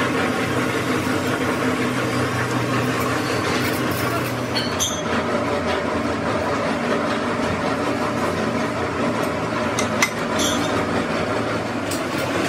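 Belt-driven metal lathe running steadily, spinning a large steel hydraulic cylinder tube in its chuck, with a few sharp metallic clicks, the loudest about ten seconds in.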